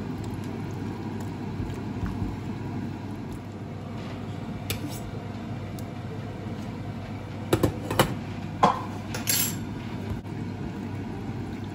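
Kitchen clatter at the stove: a few sharp metal clinks of pots and utensils, bunched in the second half, over a steady low hum.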